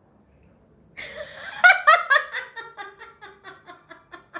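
A burst of laughter starting about a second in with a breathy rush, then running on in quick ha-ha pulses that fade toward the end.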